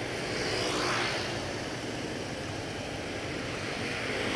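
Motorcycle engine running and road noise while riding in heavy traffic, heard through an action camera's external microphone, with a brief swell about a second in.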